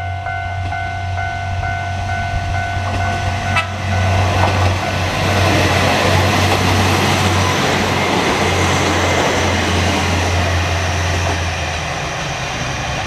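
Japanese level-crossing alarm ringing with a steady repeating electronic ding, which stops about three and a half seconds in. Then a Kanto Railway KiHa 2100 diesel railcar passes over the crossing, loud with the rumble of its wheels on the rails for several seconds before easing off.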